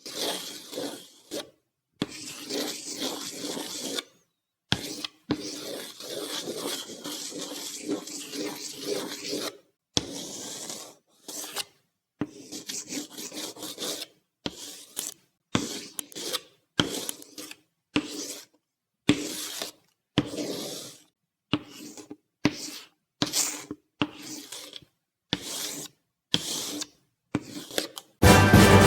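A rasping, rubbing sound in a run of strokes: a few long strokes lasting several seconds, then many short strokes of about half a second, coming faster toward the end.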